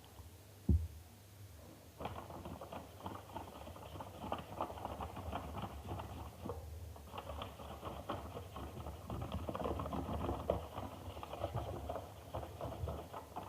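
A spoon stirring a glue slime mixture in a bowl: rapid scraping and tapping against the sides, with a brief pause about halfway through. A single knock comes just before it starts.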